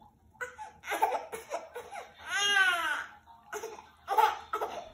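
Baby crying in short sobbing cries, with one longer, rising-then-falling wail about halfway through.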